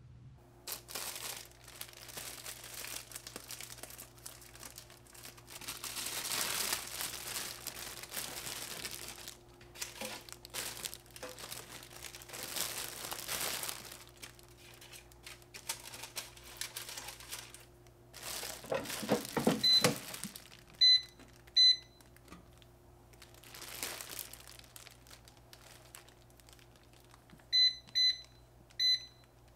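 Plastic bread bag crinkling and rustling as slices of bread are taken out and the bag is handled. Two short electronic beeps a little past the middle and three more near the end, from an air fryer's controls, with a steady low hum underneath.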